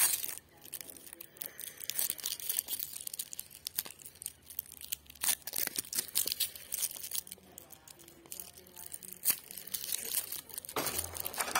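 Wrapper being torn and crinkled by hand as a packaged egg is opened, in many quick irregular crackles, with a louder rustle near the end.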